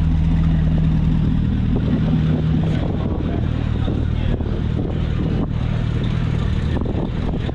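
Car engine idling steadily, a low even hum whose pitch shifts slightly a little under three seconds in.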